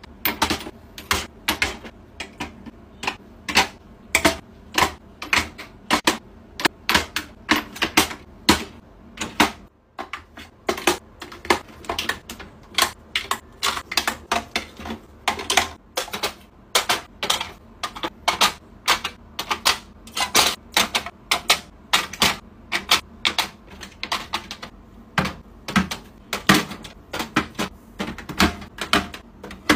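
Skincare bottles being set down one after another in a clear acrylic organizer: a quick, irregular run of sharp clicks and taps, a few a second.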